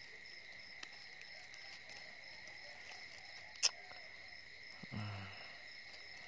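Night crickets chirring steadily at two high pitches, with a single sharp click a little past halfway through.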